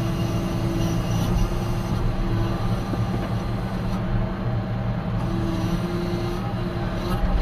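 John Deere 6R 155 tractor's six-cylinder diesel engine running steadily under the front loader's work, heard from inside the cab, with a higher whine that comes and goes over the engine note.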